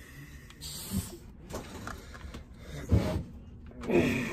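Handling noise from working on a chainsaw and its compression tester: a short hiss about a second in, then a few knocks and clunks with rustling between them.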